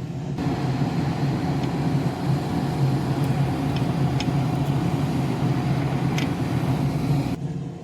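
Hot air rework station blowing a steady, hissing stream of air onto the circuit board to melt the solder on a knob's pins. It comes on just after the start and cuts off suddenly near the end, with a few faint ticks over it.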